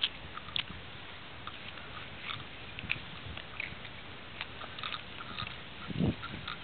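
Footsteps crunching and scuffing on gritty asphalt, with scattered light clicks and a brief dull bump about six seconds in.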